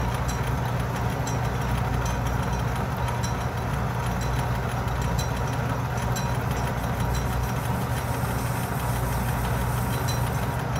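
Atlas metal lathe running steadily with a low hum, and a faint tick about once a second, while a tool chamfers the sharp edge of the bore in a hex block.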